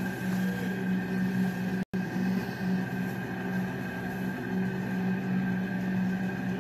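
A steady low drone that holds one pitch, with fainter higher tones above it, broken by a brief cut to silence about two seconds in.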